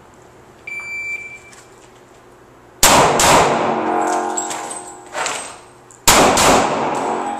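A steady electronic shot-timer beep about a second in, then handgun shots: a quick string just before three seconds in, a single shot around five seconds, and another quick string just after six seconds, each ringing on with echoes under the range's cover.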